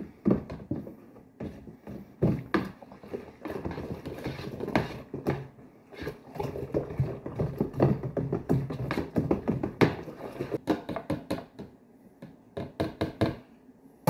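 A stirring rod knocking and swishing inside a plastic jug of honey-and-water mead must. Quick irregular clicks thicken into a steady, busy churning from about three seconds in, then thin to scattered knocks near the end.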